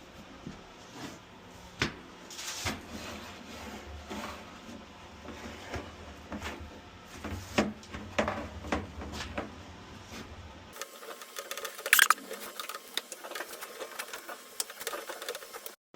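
Irregular clicks, taps and knocks of hand work on HVAC parts, with short rattling stretches. The loudest click comes about twelve seconds in, after an abrupt change in the sound.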